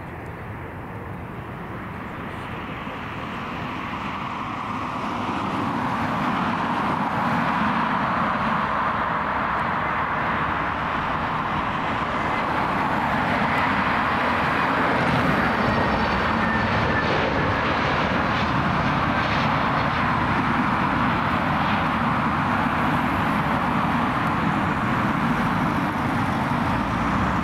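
Airbus A321neo airliner's jet engines on landing approach, growing louder over the first several seconds as the aircraft comes closer, then a steady rushing engine noise.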